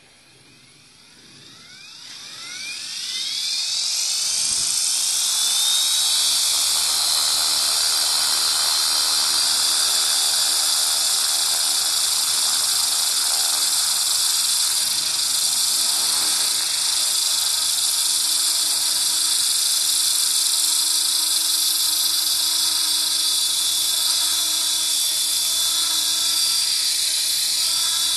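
Align T-Rex radio-controlled helicopter spooling up: the motor and rotor head start with a whine that rises in pitch over the first few seconds, then run steadily at full rotor speed with a loud high whine and rotor buzz.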